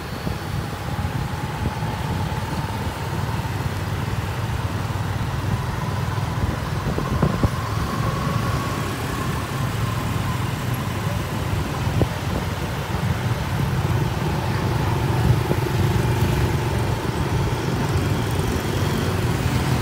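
Motorbike engine running at a steady cruising speed, heard from the rider's seat as a constant low rumble with road noise. A faint whine drifts slowly up and down in pitch, and there are a couple of light knocks.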